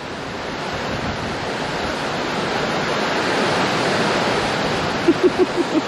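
Water rushing and churning in a canal lock chamber, a steady rushing noise that slowly grows louder. A quick run of short low pulses comes near the end.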